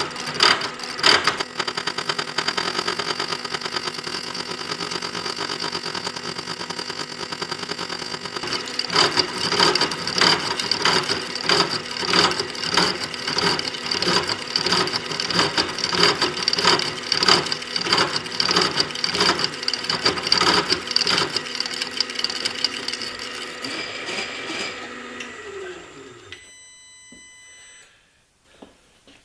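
A machine spindle cutting through a stack of snap-ring blanks, with a steady running tone and a fast, even rattle from the cut. Near the end the machine is switched off and winds down once the cut is through the last ring.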